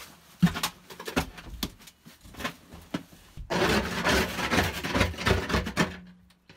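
Snow being wiped and scraped off the boat cabin's front window glass from outside. A sharp knock comes about half a second in, then scattered knocks. From about three and a half seconds in, a dense, continuous rubbing and scraping on the glass runs for a couple of seconds and stops abruptly.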